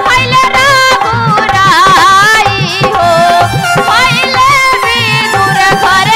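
A woman singing a Hindi devotional bhajan into a microphone, her voice bending and wavering through ornamented phrases, over steady drum accompaniment.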